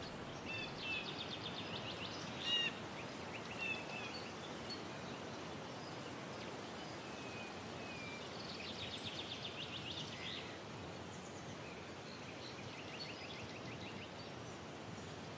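Small birds chirping and trilling in short, scattered calls over a faint, steady outdoor hiss.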